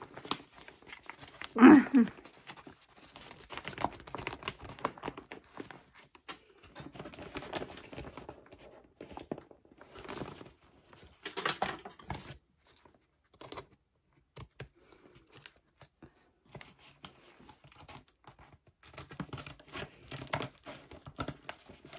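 Paper and bubble-padding of a large kraft cushion mailer rustling and crinkling in the hands as it is handled and turned over, in irregular bursts. A brief louder noise comes about two seconds in.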